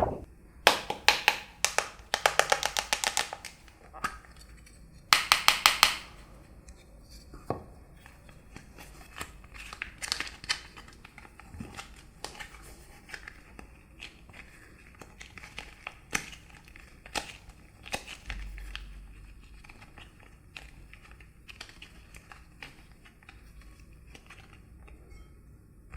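Slime being squeezed and pulled by hand: two runs of rapid sticky clicking and crackling, the second about five seconds in, then scattered softer pops and crackles.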